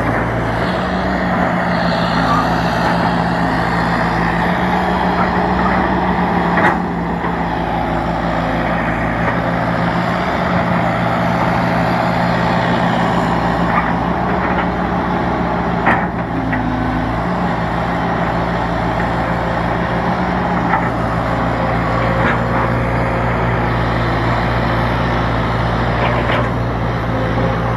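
Diesel engine of old heavy equipment running steadily, with a few sharp knocks about seven and sixteen seconds in.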